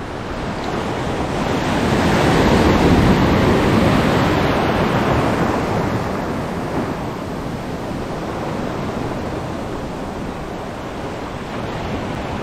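Heavy sea surf washing in, one wave surging to a peak about three seconds in and slowly ebbing away, with wind on the microphone.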